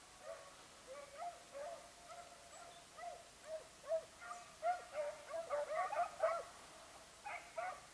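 Basset Fauve de Bretagne hounds giving tongue on a rabbit's scent: a string of short baying yelps, sparse at first, then overlapping and coming faster from about four seconds in, with a brief gap and two more calls near the end.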